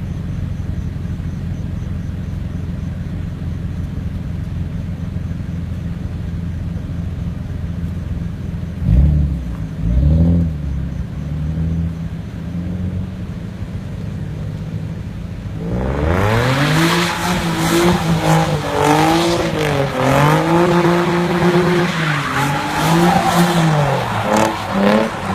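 Nissan 350Z's V6 engine running steadily, blipped twice about nine and ten seconds in. From about sixteen seconds it revs up and down repeatedly while the tyres squeal in a drift.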